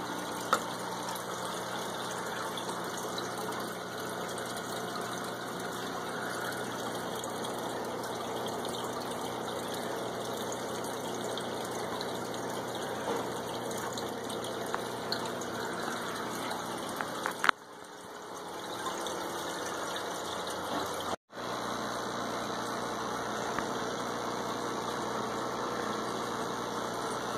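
Aquarium filter running: a steady rush of moving water over a low motor hum. A couple of sharp clicks stand out, the loudest about two-thirds of the way through, and the sound drops out for a moment a few seconds later.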